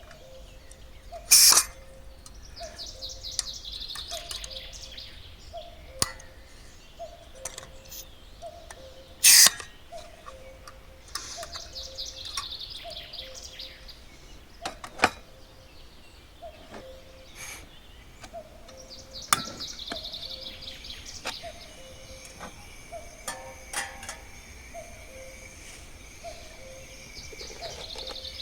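Birds calling outdoors. A low two-note call repeats steadily about every second and a half, and a songbird sings a short high phrase roughly every eight seconds. Two loud sharp knocks come about a second and a half in and about nine seconds in.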